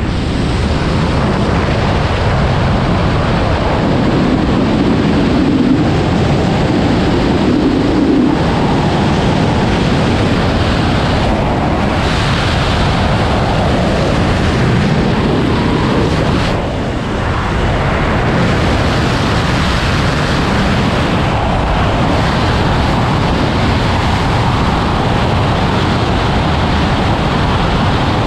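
Loud, steady rush of air buffeting the microphone of a wingsuit pilot's body-mounted camera in flight, dipping briefly about seventeen seconds in.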